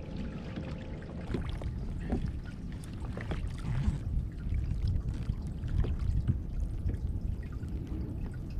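Water sloshing and splashing against a kayak hull, with occasional light knocks and a steady low rumble underneath.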